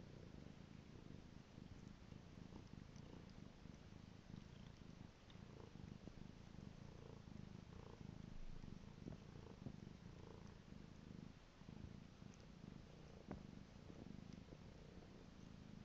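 Domestic tabby cat purring softly and steadily while being scratched under the chin.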